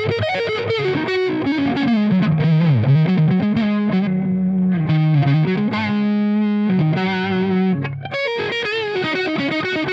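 Gibson Les Paul electric guitar played straight into a Marshall tube amp with no effects, giving a distorted, overdriven tone. Riffs with bent notes, a few held notes in the middle and a short break near the end.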